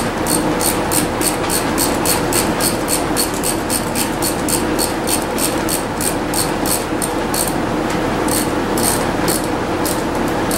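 Ratchet wrench clicking rapidly as it is worked back and forth on a riding mower engine, loosening the spark plug of an engine flooded with gas. The clicks come about three or four a second, pause briefly near the end, then start again, over a steady hum.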